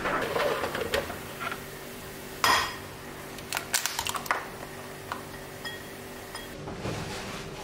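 Kitchen clinks and knocks: an egg rapped sharply on a white ceramic bowl about two and a half seconds in, then a quick run of clicks as the shell is broken open and the egg drops into the bowl. A faint steady hum runs underneath.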